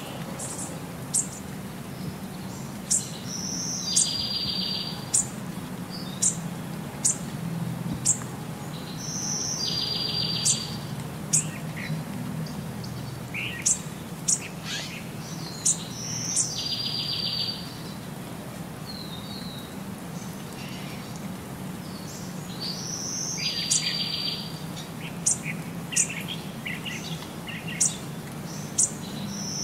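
Birds chirping: sharp high chirps every second or two, and a buzzy trill that comes back about every six to seven seconds in the same form, like a looped birdsong track. A low steady hum runs underneath.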